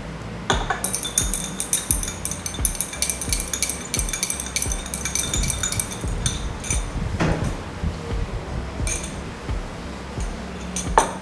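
Glass stirring rod clinking rapidly against the inside of a small glass beaker, stirring the ethanol, hydrogen peroxide, glycerol and water mixture until it is evenly mixed. The clinking starts about half a second in and goes on for about six seconds, with a few more clinks later, over background music.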